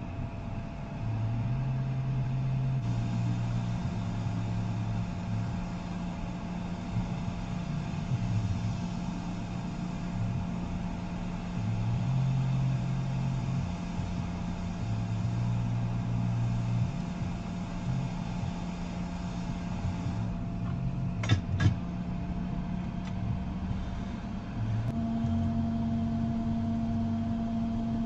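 Hot air rework station blowing a steady, humming stream over a laptop logic board chip, its low tone shifting now and then. Two sharp clicks come in quick succession about three-quarters of the way through.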